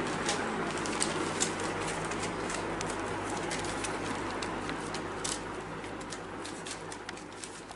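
Five-week-old whippet puppies eating kibble together from a stainless steel pan: a busy jumble of chewing and crunching, with many small clicks of pellets and teeth on the metal and small puppy vocal sounds, fading toward the end.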